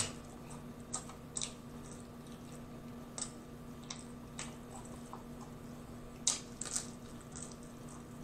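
Close-miked eating of a fried chicken wing: scattered short wet clicks and crunches from chewing and from fingers pulling at the fried meat, with quiet stretches between. The loudest come at the very start and again about six seconds in.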